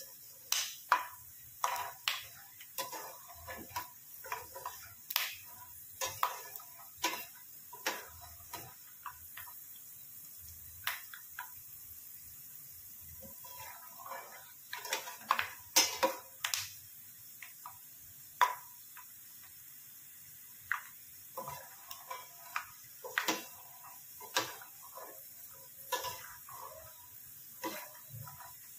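Slotted steel spatula stirring peanuts frying in oil in a steel pan: irregular clinks and scrapes of metal against the pan over a faint sizzle of hot oil.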